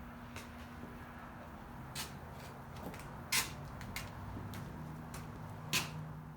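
A few scattered clicks and knocks over a steady low hum, the loudest about three seconds in and again near the end.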